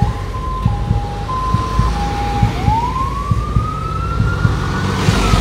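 Fire-brigade vehicle's siren sounding a two-tone hi-lo pattern, switching tones about every half second. About two and a half seconds in it changes to a wail that rises slowly and starts to fall near the end. A low rumble runs underneath.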